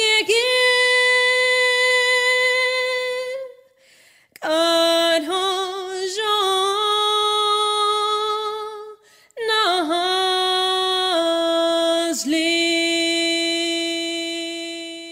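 A solo female voice singing unaccompanied: three long held notes with vibrato, separated by short breaths, the pitch settling lower through the phrases and the last note fading out near the end.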